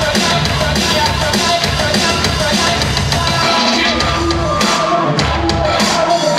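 Loud rock music with a driving drum kit, played for a rock'n'roll formation dance.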